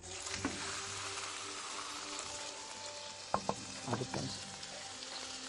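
Lamb shoulder sizzling steadily as it sears in a hot pan with butter, the sizzle starting suddenly as the meat goes in. A few sharp knocks sound about three and a half to four seconds in.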